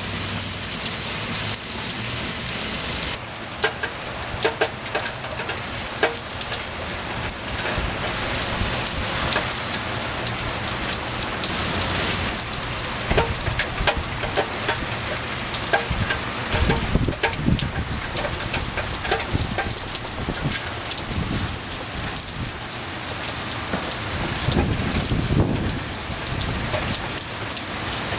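Steady rain falling, with many individual drops tapping on a surface and a few low rumbles about halfway through and again near the end.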